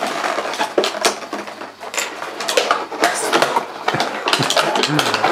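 Small plastic toy accessories clicking and rattling against each other and the cardboard as hands rummage through an open box, with rustling.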